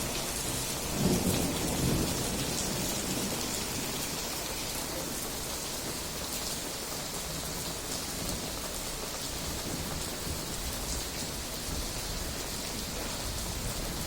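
Steady rain hissing throughout, with a roll of thunder rumbling about a second in that fades within a couple of seconds.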